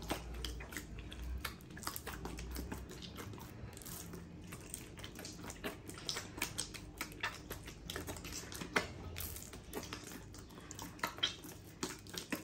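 Soft, wet dough being kneaded by hand, the palm rubbing and pushing it with irregular sticky clicks and squelches as water is worked in.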